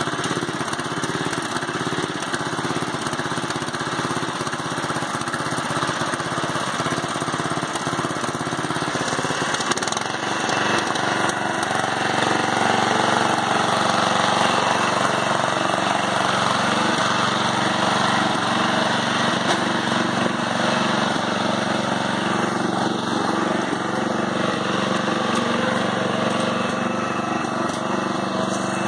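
Murray riding lawn mower's engine running under load as it is driven through mud, getting louder about ten seconds in.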